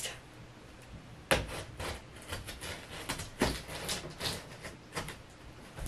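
A cardboard shipping box being opened with a box cutter: scattered light scrapes and ticks, with two sharper knocks, one about a second in and another about three and a half seconds in.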